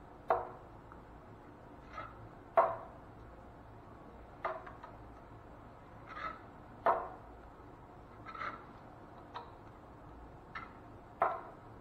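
Hand skip trowel working joint compound onto drywall for a skip-trowel texture: a sharp tap or clack of the metal blade every second or two, some followed by a short scrape.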